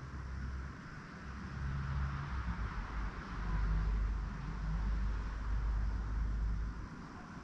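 Low outdoor rumble with a hiss above it, swelling about three seconds in and easing off near the end.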